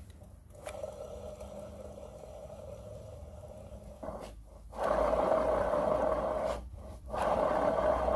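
Mercedes ML500 W164 rear differential, opened up, with its ring gear and bearings turned by hand: a rough, steady rotating noise that comes in spells with short breaks and gets louder from about five seconds in. It is the noise of the damaged differential whose bearings are being replaced.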